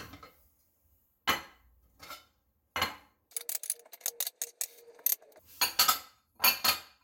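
Glass meal-prep containers and other kitchenware clinking and knocking as they are set down and handled on a counter: a few separate knocks, then a run of quick clicks, then two louder clatters near the end.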